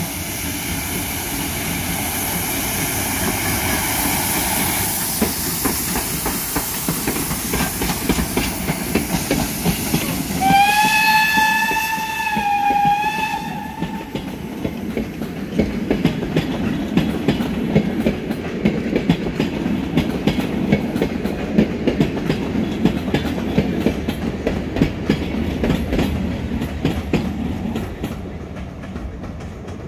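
Pt47 2-8-2 steam locomotive hauling a passenger train out of the station and past: a loud rush of noise as the engine goes by, then one whistle blast of about three seconds about ten seconds in. The coaches follow, rolling by with rapid wheel clicks over the rail joints, fading near the end.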